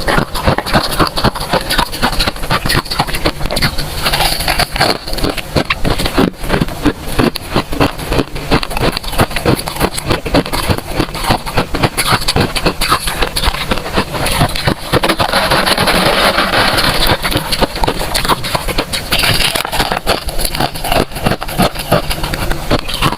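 Close-up crunching of freezer frost, a dense, continuous run of crackles and scrapes.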